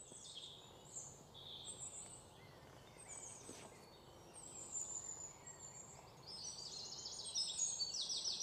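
Faint chirping of small birds, growing busier with quick runs of repeated chirps in the last couple of seconds.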